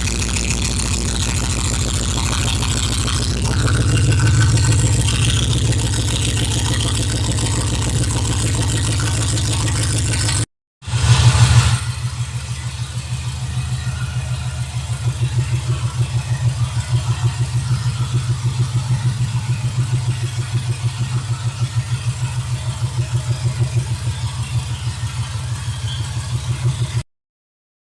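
1970 El Camino's V8 on FiTech Ultra Ram fuel injection running through Black Widow offset mufflers with turned-down tailpipes. It idles, picks up briefly about four seconds in, and gives a short rev after a cut about eleven seconds in. It then settles into an idle with an even, pulsing exhaust beat.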